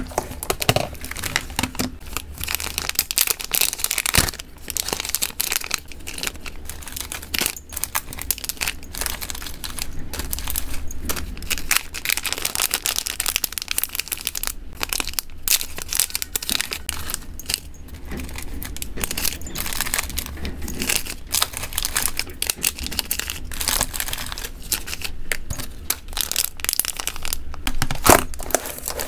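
Plastic snack packets and a clear zip bag crinkling as they are handled, with sharp clicks from a plastic storage box's snap-lock lid at the start and near the end.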